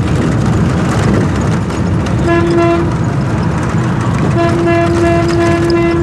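A vehicle horn sounding on one steady pitch: a short blast about two seconds in, then a long blast from about four and a half seconds, over a steady low rumble.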